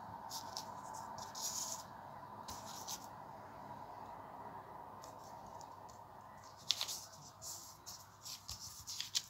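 A sheet of lined paper handled and shifted on a wooden table: short crinkles and rustles, clustering about a second and a half in and again in the last couple of seconds, over a faint steady hum.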